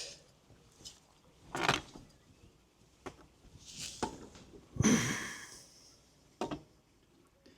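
Scattered knocks and bumps with a few short rustling noises; the strongest knocks come about a second and a half in and about five seconds in.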